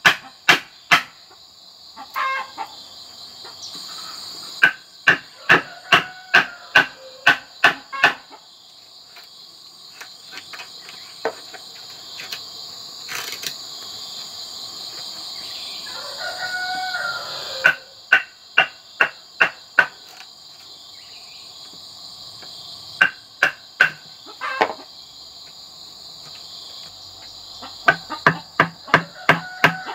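Blade chopping into a standing bamboo post to cut a hole: sharp knocks in bursts of about two to three a second, with long pauses between. A steady shrill insect buzz runs underneath, and a rooster crows once about halfway through.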